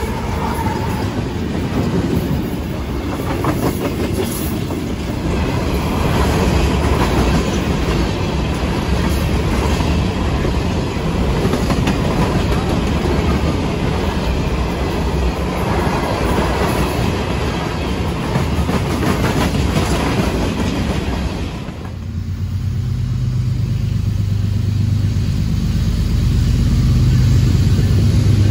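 Freight train passing close: diesel locomotives and then loaded open hopper cars rolling by, the wheels clacking rhythmically over rail joints. About 22 s in this gives way to the steady low drone of distant approaching diesel locomotives, growing louder near the end.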